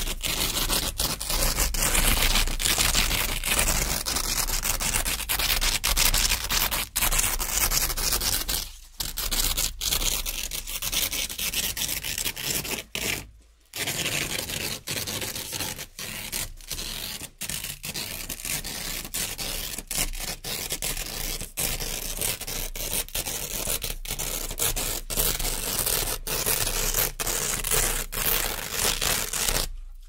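Velcro hook-and-loop strips being peeled apart in long, continuous rips, broken by many short pauses and two longer ones about nine and thirteen seconds in.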